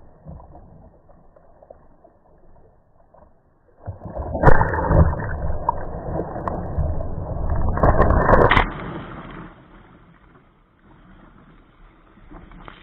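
Sea water washing and splashing over a kayak's bow and the camera: a loud, muffled rush of water that starts suddenly about four seconds in, lasts about five seconds, then falls back to a low wash of wind and waves.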